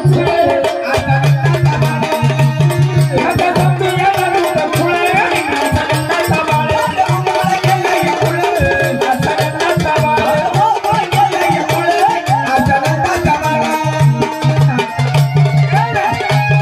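Live Marathi gavlan folk music: a wavering melody line over a steady, repeating drum beat.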